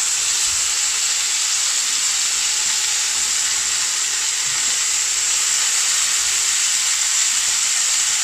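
Chicken tikka shashlik skewers sizzling steadily on a hot cast iron grill pan greased with butter ghee.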